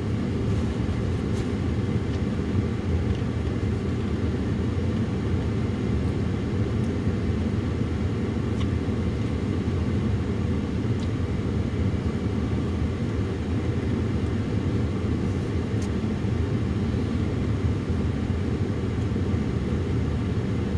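Steady low rumble of a running vehicle, even throughout.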